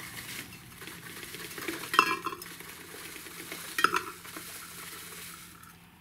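Dry loose-leaf tea being poured from a paper bag into a glass teapot's metal infuser basket: a light rustle of leaves, with two sharp ringing clinks of the teapot about two and four seconds in.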